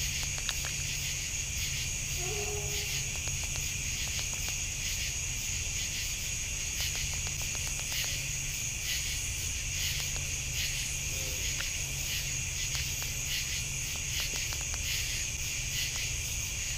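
Night insect chorus of crickets: a steady high-pitched trilling with a quicker pulsing chirr beneath it. A steady low hum runs underneath.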